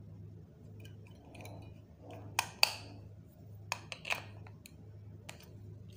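AA batteries being fitted into the plastic battery compartment of a small LED video light, making a handful of sharp clicks and clinks, the two loudest close together about two and a half seconds in and a few more over the next couple of seconds.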